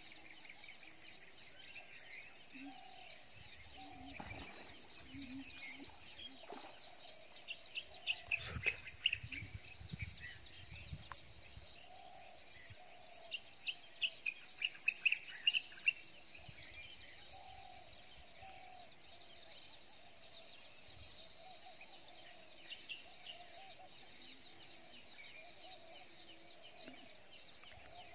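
Marshland birds chirping and calling over a steady high-pitched insect buzz. Two short bunches of louder, sharper chirps come near the middle.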